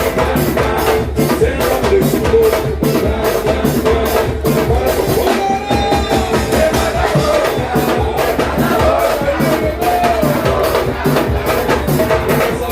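Brazilian samba percussion band (batucada) playing a driving rhythm, sharp strokes at about four a second over steady low drumming.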